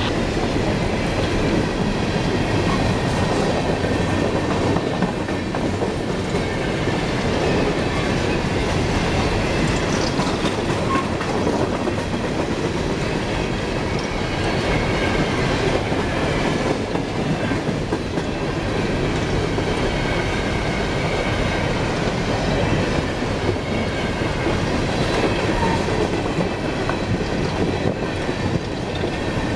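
CSX empty coal hopper cars rolling steadily past: a continuous rumble and rattle, with the clickety-clack of wheels over rail joints and a faint, thin wheel squeal now and then.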